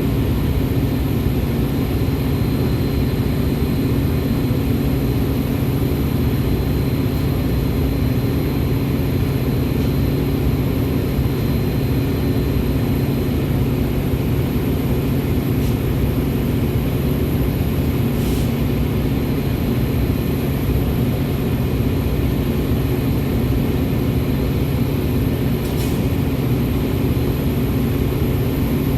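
Metra commuter train running, a steady low drone and rumble with a few faint clicks.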